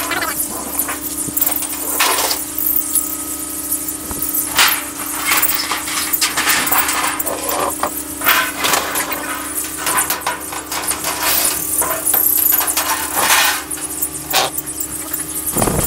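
Trays being slid into the bottoms of wire breeding cages, with irregular clattering and scraping of the trays against the cage frames, over a steady low hum that cuts off near the end.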